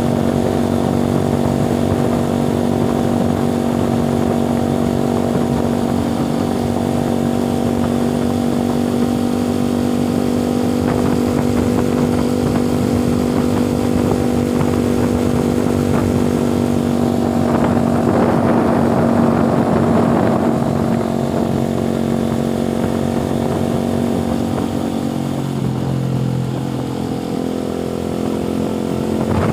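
Motorcycle engine running at a steady pitch while riding, with a louder noisy rush a little past halfway.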